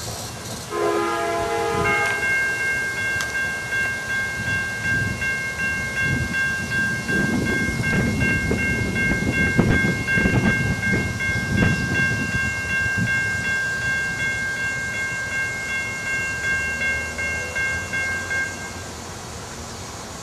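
Grade-crossing warning bell ringing rapidly and steadily as the crossing gates come down; it starts about two seconds in and stops shortly before the end, when the gates are down. Low rumbling noise swells in the middle.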